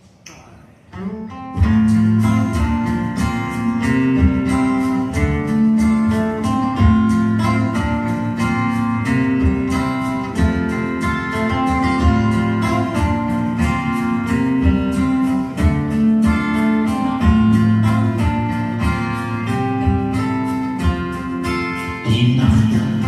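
Live guitar instrumental intro of a song, plucked guitar notes with a steady bass line, starting about a second in.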